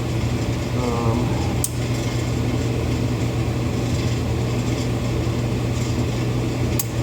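Garage furnace running with a steady low hum. Two sharp clicks, one about two seconds in and one near the end, come from small parts being popped off a snowmobile carburetor.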